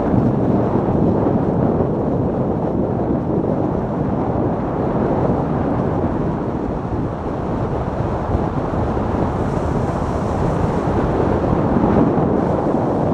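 Steady wind rush on an action camera's microphone, with the runners of a sport luge running over packed snow, as the luge descends at about 30 to 37 km/h.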